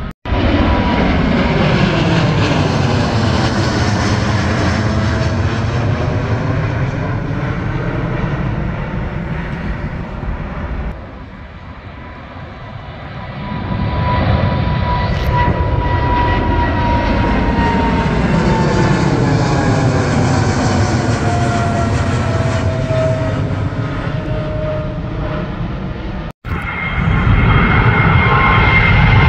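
Jet airliners passing low overhead one after another, each engine roar swelling and then fading as it goes over, with a whine that falls in pitch. The sound cuts out abruptly for an instant twice.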